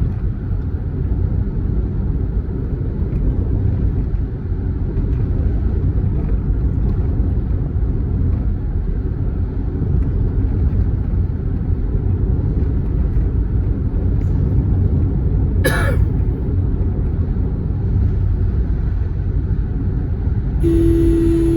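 Steady low road rumble of a moving vehicle. A brief sharp sound comes about three-quarters of the way through, and a vehicle horn starts sounding, held on one note, about a second before the end.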